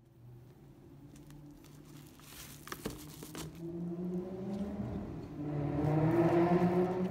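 Rustling and crinkling as a foil-lined insulated lunch bag and plastic food containers are handled, with a couple of sharp clicks about three seconds in. A steady low hum runs underneath, and the handling noise gets louder near the end.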